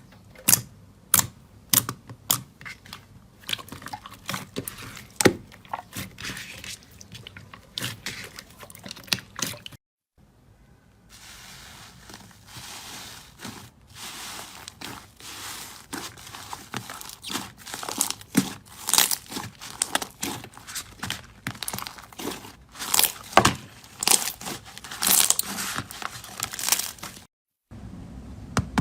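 Hands squeezing, poking and stretching slime, giving sharp clicking pops and crinkly, crunching crackles. The pops come one by one at first; after a short break about a third of the way in they turn into a denser crackle.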